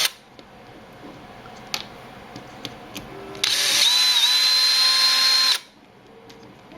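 Power drill-driver running on a screw for about two seconds in the middle, a steady motor whine. A few light clicks come before it.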